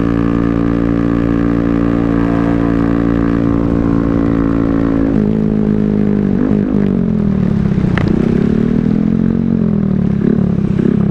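Honda Grom's 125 cc single-cylinder engine heard while riding, holding a steady speed for about five seconds, then dropping in pitch and swinging up and down as the throttle is eased off and opened again.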